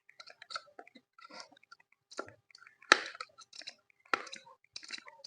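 Maruti Omni propeller-shaft universal joint (UJ cross) being turned back and forth by hand, giving faint, irregular creaking and crunching clicks, with two sharper clicks about three and four seconds in. The joint's needle bearings have lost their grease with age and rusted, so it binds and grates as it turns.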